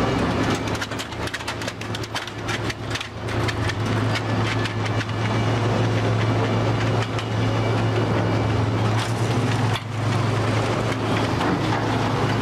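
Machinery running with a steady low hum, with frequent sharp knocks and clatter on top.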